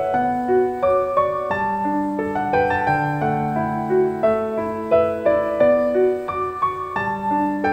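Background piano music: a melody of single notes moving over held low notes.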